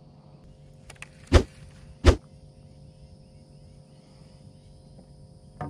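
Two hard knocks about a second apart, made by gear handled in the boat, with a fainter click near the end. Under them is a steady high drone of insects.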